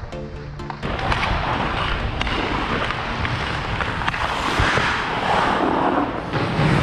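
Ice hockey skate blades scraping and carving on the ice, with air rushing over a helmet-mounted camera's microphone, and a few sharp clicks along the way.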